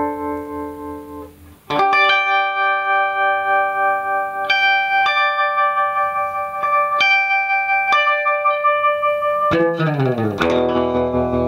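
Electric guitar played through a Q-Lune tremolo pedal, a clone of the 4ms Tremulus Lune: ringing chords and single notes whose volume pulses quickly and evenly. A chord fades out and a new one is struck about two seconds in. Near the end a chord slides down in pitch and rings on.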